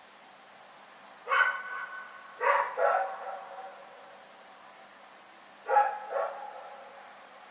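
A dog barking at night: five barks, a single one about a second in, a quick pair a second later, and another quick pair near the end.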